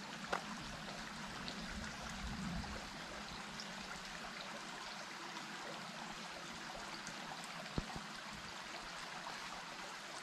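Small stream running steadily: an even rush of flowing water, with two brief clicks, one just after the start and one near eight seconds in.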